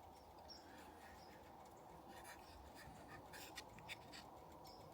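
Near silence: faint background hiss with a few soft, brief ticks or rustles in the second half.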